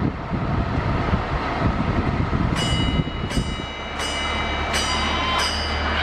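A small bell rung by a trained parrot counting out a number: five evenly spaced rings about 0.7 s apart, starting about two and a half seconds in. Before the rings there is a low rumble.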